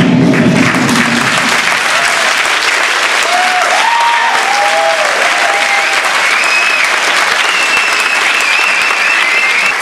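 Audience in an auditorium applauding steadily, with whoops and whistles over the clapping. Music fades out in the first second or two.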